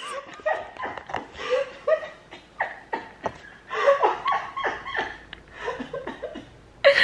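A woman laughing in short, uneven, breathy gasps.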